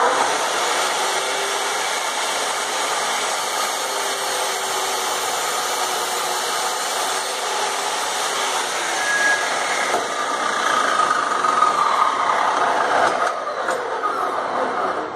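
GCO 2000 cut-off saw (policorte) fitted with a toothed wood blade, its motor starting abruptly at full speed and running steadily while the blade is lowered through a thick block of wood, then winding down near the end.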